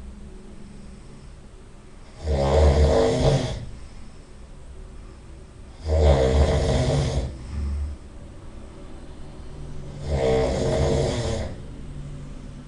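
A person snoring loudly: three heavy, rattling snores about four seconds apart, each lasting about a second and a half, with a quieter low rumble of breathing between them.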